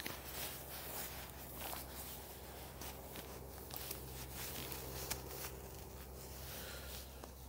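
Faint rustling and light scattered ticks over a low, steady background hum.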